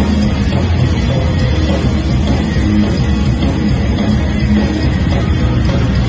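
Live rock band playing: electric guitar over a drum kit, loud and continuous.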